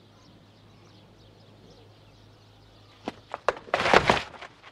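Quiet background hum, then about three seconds in a few sharp clicks of glass marbles knocking together as they are gathered up, followed by a short, loud clatter.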